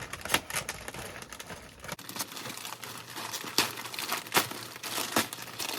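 Packaging crinkling and rustling as it is pulled and torn open, with scattered sharp crackles.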